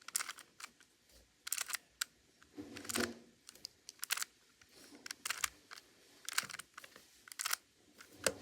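A 3x3 Rubik's cube being turned by hand through a sequence of moves: the plastic layers clack and click in quick, irregular bursts, a dozen or so turns.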